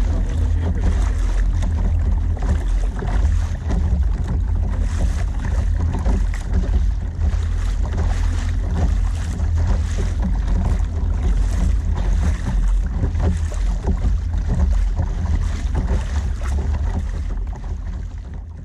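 Wind buffeting the microphone in a steady heavy rumble, with sea water splashing and rushing along the hull of a moving fishing kayak. It fades away near the end.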